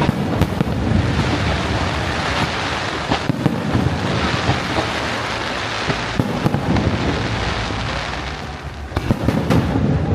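Fireworks display: a continuous volley of bangs and crackling. Clusters of louder sharp reports come about three seconds in, about six seconds in, and just before the end.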